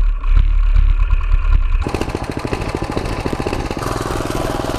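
Coleman CT200U minibike's single-cylinder engine running while riding, its rapid firing pulses clear from about two seconds in. A deep low rumble fills the start.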